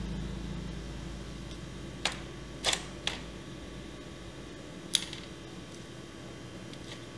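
A few sharp small clicks of hard objects handled on a repair bench: two close together about two seconds in, a third just after, and a louder one about five seconds in. A low hum underneath fades out in the first half.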